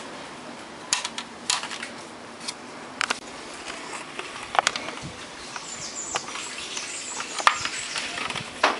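Scattered plastic clicks and small knocks from hands handling a portable CD radio's opened plastic cabinet and wiring, over a steady low hiss.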